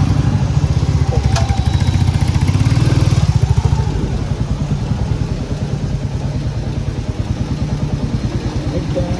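Motorcycle engine running with a rapid, even beat. It is louder for the first few seconds and eases off about four seconds in.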